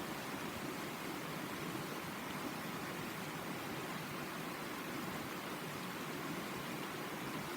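A shallow river running over stones, a steady, even babble with no change.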